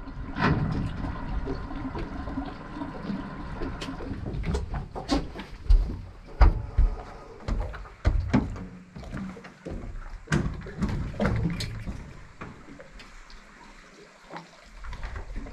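Water splashing and sloshing, with irregular knocks and low thumps throughout.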